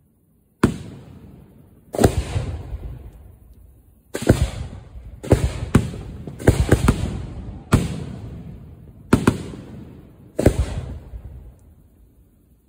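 Aerial firework shells being fired from mortar racks close by and bursting overhead: about ten sharp booms, some in quick pairs, each trailing off in a long rolling echo.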